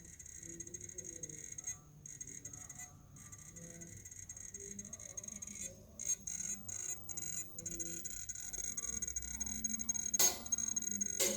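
LG Chem battery making a high-pitched electronic whine while discharging, which cuts out for a moment several times and comes back. Two short knocks near the end.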